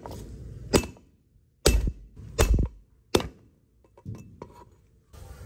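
Heavy cleaver blows on a wooden chopping board, about four loud thuds a second or less apart, smashing lemongrass stalks and galangal, then a few lighter knocks near the end.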